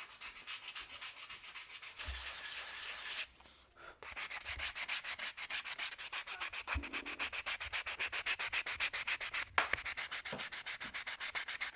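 A carved wooden fish decoy being hand-sanded with 100-grit sandpaper: quick, even back-and-forth rubbing strokes, with a brief pause a little past three seconds in.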